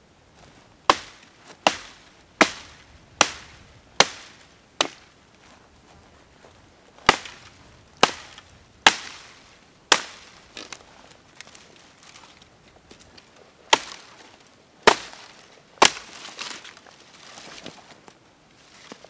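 Hatchet chopping dead branches: a run of six sharp chops about one every 0.8 s, then four more after a pause, then three, with branches rustling near the end.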